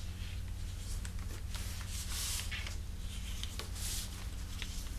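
Sheet of origami paper handled and squash-folded by hand: paper rustling and sliding on the table, with a few small crinkling ticks and louder rustles about two seconds in and again about four seconds in, over a steady low hum.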